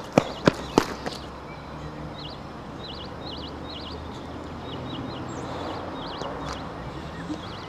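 Three running footsteps on tarmac in the first second, then small birds chirping in short repeated high phrases over a steady outdoor hum.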